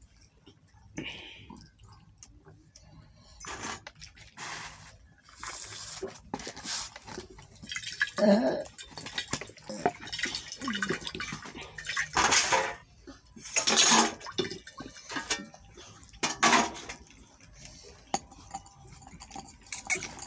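Irregular clatters and knocks of small hard objects, in separate short bursts, as a toddler handles a plastic toy beside a steel bowl.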